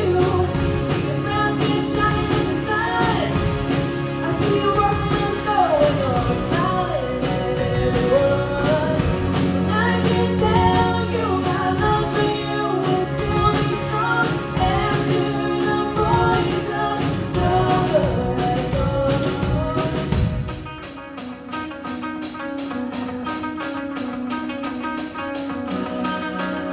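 A song performed with a singer over a band with a steady beat; about twenty seconds in the singing and the bass drop out, leaving a guitar part over the beat.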